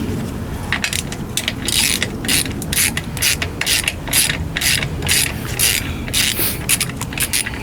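Ratcheting clicks in short, quick strokes, about two a second, the rasp of a ratchet and pawl being worked over and over.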